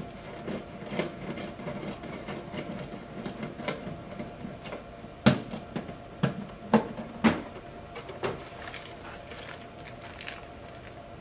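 Handling of a plastic fiber-optic enclosure: a series of sharp clicks and knocks, the loudest four between about five and seven and a half seconds in, as its plastic latches are worked and the door is opened, then light plastic-bag rustling near the end, over a faint steady hum.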